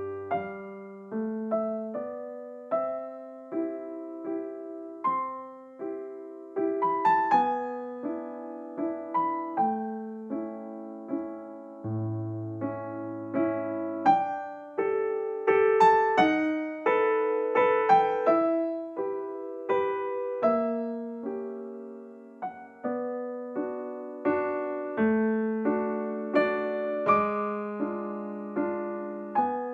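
Background piano music: a slow, gentle melody of single struck notes and chords, each fading after it is played.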